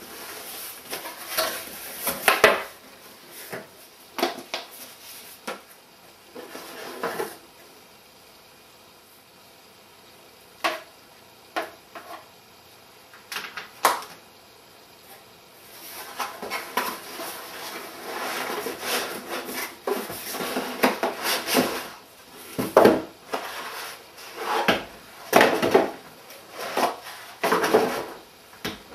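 Cardboard shipping box being opened and unpacked: flaps, inserts and packaging rustling and bumping, with irregular knocks against a wooden table. The handling thins out to a few single knocks in the middle and then gets busy again.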